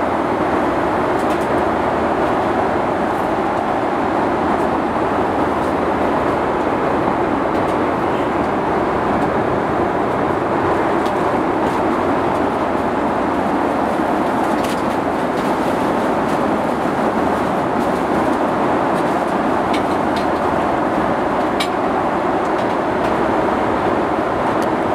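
Steady roar of an airliner cabin in flight, holding even throughout, with a few faint clicks.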